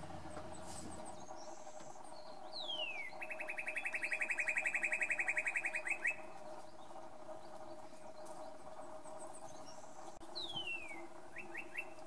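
Male northern cardinal singing. About two and a half seconds in, a downslurred whistle leads into a fast run of short repeated notes, about ten a second, lasting some three seconds. About ten seconds in comes another downslurred whistle followed by three quick notes.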